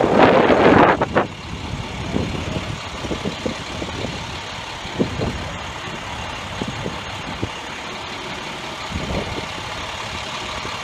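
Large truck's engine idling steadily, with scattered small knocks; a loud rushing noise covers the first second or so before settling.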